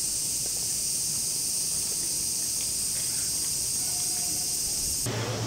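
Steady, high-pitched drone of insects in the surrounding woods, which stops abruptly near the end.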